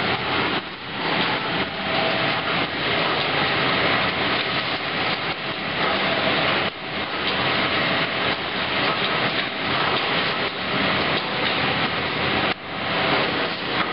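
Bamboo-processing machines running in a workshop, a dense steady clatter and hum. The noise drops and changes abruptly twice, about seven and twelve and a half seconds in.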